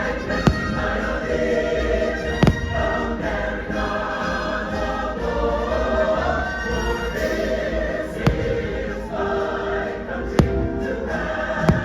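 Fireworks show soundtrack of a choir singing over orchestral music, cut by about five sharp firework bangs at irregular intervals.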